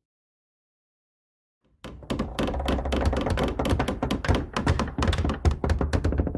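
Friction and stress sound effect: after a short silence, a dense run of rapid, irregular clicks and knocks over a low rumble starts about two seconds in, like something grinding or creaking under strain.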